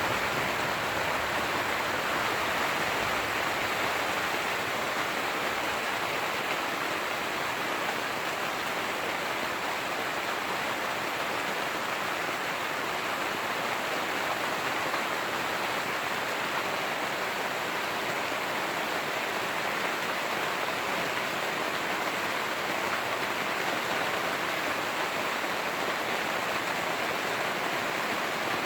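Heavy rain falling steadily on the fabric of a Cabela's Big Horn 3 tent, an even hiss with no breaks.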